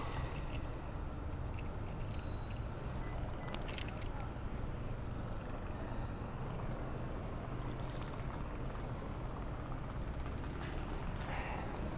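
Steady rumble of street traffic, with a few faint scattered clicks.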